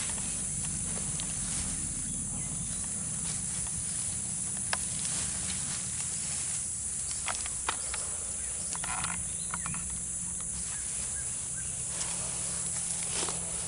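A steady outdoor chorus of insects, a continuous high-pitched buzz, with a few faint clicks and rustles.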